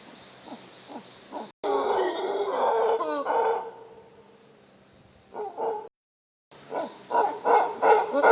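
Monkeys calling in the forest canopy: a bout of loud, pitched barking calls, a short pair of calls, then a rapid run of calls near the end.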